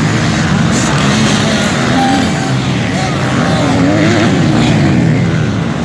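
Several motocross bikes racing along a dirt track, their engines revving, with several pitches rising and falling over one another as they pass close by.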